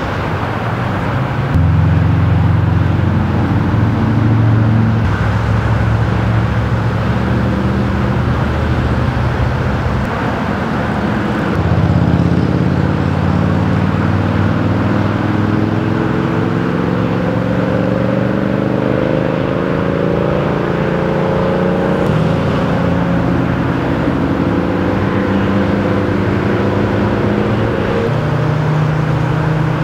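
Road traffic with the steady low drone of an idling engine, which changes pitch abruptly a few times. From about halfway, an engine's pitch climbs slowly over several seconds.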